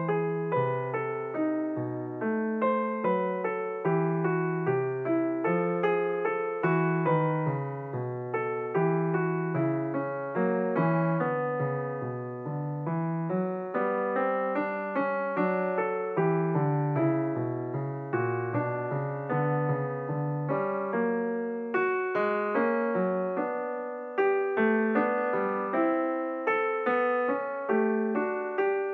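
Background piano music: a continuous flowing run of notes, several a second, each struck and fading.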